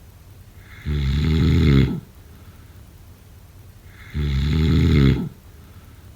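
A person snoring: two long, rattling snores on the in-breath, about three seconds apart, each growing slightly louder before cutting off, with quiet breathing between.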